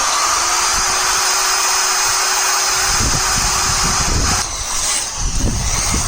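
Handheld power tool running on metal: a steady motor whine over a loud grinding hiss. It cuts off about four and a half seconds in.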